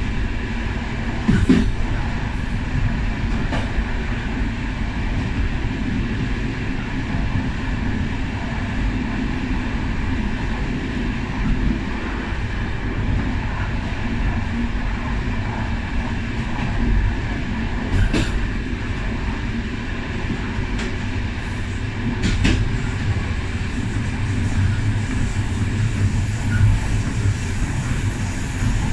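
Steady rumble of a railway passenger coach rolling along the track, heard from its rear end, with a few sharp clicks and knocks from the wheels and running gear.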